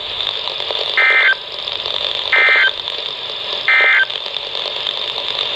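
NOAA Weather Radio SAME end-of-message code: three short, identical bursts of digital data tones, about 1.35 seconds apart, over steady radio hiss, marking the end of the emergency alert broadcast.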